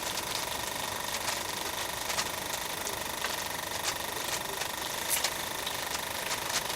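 Steady buzzing hum of a small electric motor or pump, with a thin steady tone and a few faint ticks over it.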